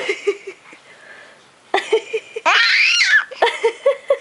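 A four-month-old baby vocalizing: high-pitched gliding squeals, one short and one longer near the middle, alternating with strings of short, rapid, laugh-like huffs.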